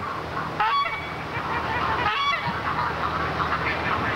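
Geese honking: one short call near the start and another about halfway through, over a steady background noise.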